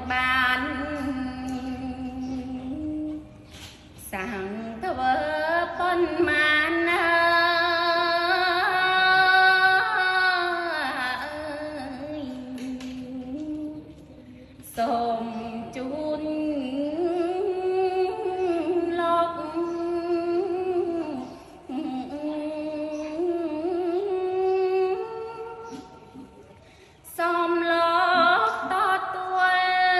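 A woman's solo voice chanting Khmer smot, the Buddhist sung poetic recitation. She holds long, wavering, slowly gliding notes in drawn-out phrases, with short breaks about 4, 15 and 27 seconds in.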